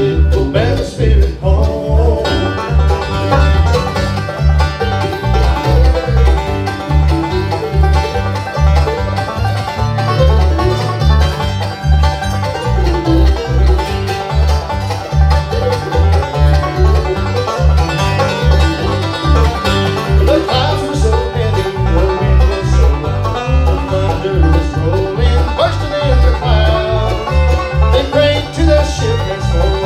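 Live bluegrass band playing an instrumental break: banjo, acoustic guitar, mandolin and fiddle over an electric bass line that pulses steadily on the beat, with no singing.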